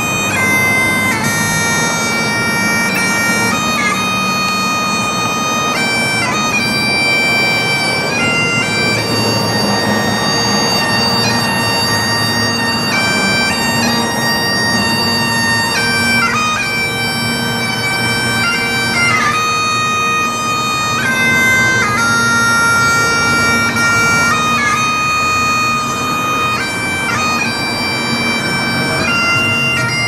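Bagpipes playing a slow tune: a steady drone beneath a melody of long held notes.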